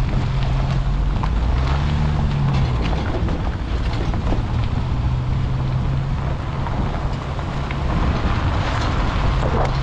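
Car engine running with a steady low hum, its revs rising briefly about two seconds in and then settling, under a constant rush of road and wind noise.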